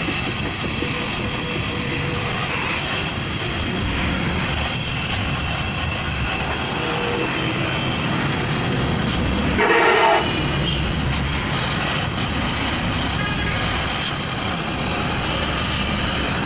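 Oxy-fuel gas welding torch flame hissing steadily while a flexible exhaust pipe joint is welded. About ten seconds in, a brief louder pitched sound.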